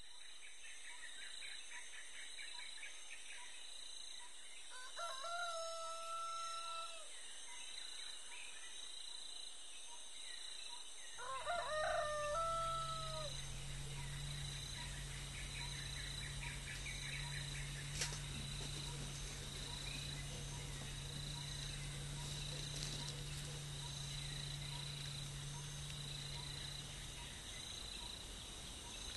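A rooster crowing twice, each crow a long held call that drops at the end. Under the second half there is a faint steady low hum.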